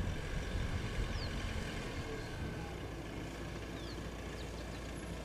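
A vehicle engine running with a steady low rumble, with a few short, high, falling chirps above it.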